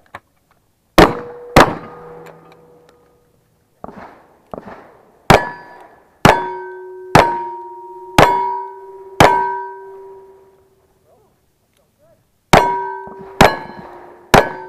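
Gunshots at steel targets, each followed by the steel plates ringing. Two quick shotgun shots come about a second in. After a pause, five revolver shots follow about a second apart, then after another pause three more near the end.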